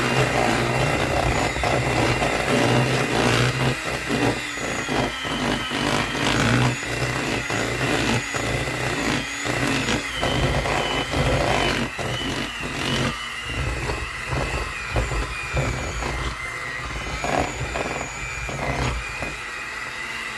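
Electric stand mixer running steadily, its beater working flour into a stiff butter and cream cheese dough, with frequent irregular knocks from the beater and dough against the bowl.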